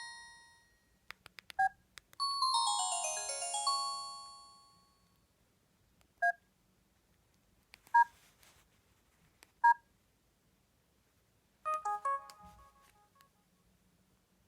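An LG GM205 mobile phone playing short preloaded ringtone and alert tones through its small speaker. A chiming melody dies away, there are a few faint clicks, and a quick descending run of notes follows. Then come three short beeps about a second and a half apart and a brief cluster of notes near the end.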